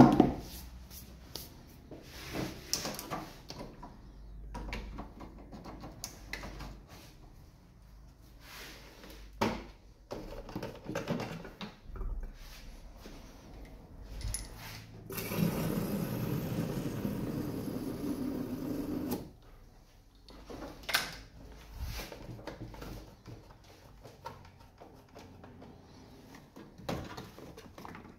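Scattered clicks and knocks of parts and tools being handled in a workshop. About halfway through comes a steady four-second blast of compressed air from a coiled air hose.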